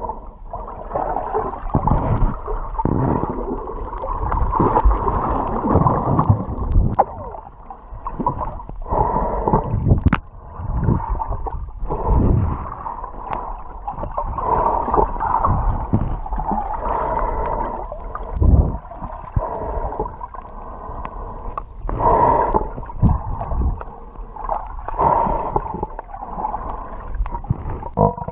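Muffled underwater water noise from a camera held below the surface while snorkelling: gurgling and rushing water that swells and fades irregularly as the swimmer moves.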